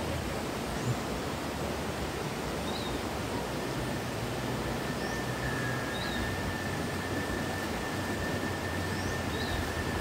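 Steady rush of flowing stream water. A few faint short chirps sound now and then, and a thin steady high tone comes in about four seconds in.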